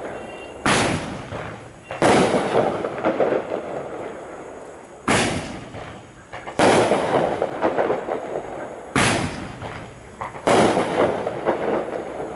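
Five-ball Roman candle firework firing three shots about four seconds apart. Each shot is a sharp launch pop followed about a second and a half later by a louder burst whose crackle fades over a couple of seconds.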